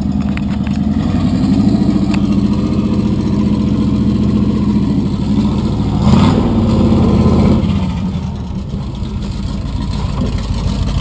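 Small-block 350 Chevy V8 in a lifted Chevy Blazer mud truck running off-road. It revs up louder and higher about six seconds in as the truck climbs, then eases back off about two seconds later.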